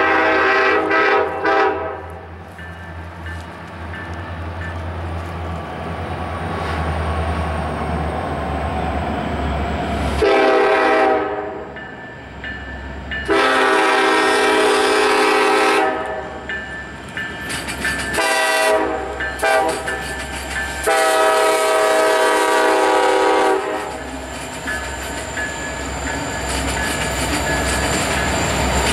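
Union Pacific SD70ACe diesel locomotive's air horn sounding a series of blasts: one cutting off about two seconds in, a short one about a third of the way in, long ones near the middle and about three quarters in, with a shorter one between them. Under the horn the diesel engines rumble louder as the freight train approaches, until the locomotives pass near the end.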